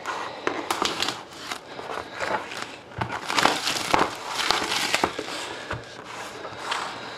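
Plastic wrapping crinkling and crackling, irregular and densest in the middle, as a cardboard trading-card display box is handled and turned over.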